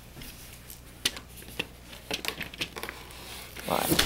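Faint clicks and rustles of a plastic airsoft rifle and its straight magazine being handled, with a louder rustle near the end.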